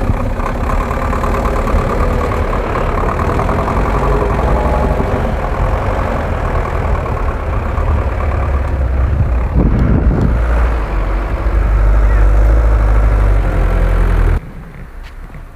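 Cab-over 4x4 army truck on oversized mud tyres pushing through deep snow, its engine running hard under load. The sound drops away abruptly near the end.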